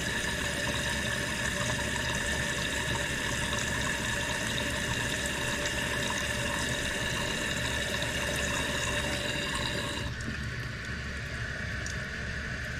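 Newly installed toilet tank fill valve running as the tank refills, a steady hiss of water with a faint whistling tone. About ten seconds in the higher part of the hiss cuts off and the flow goes quieter as the valve throttles down.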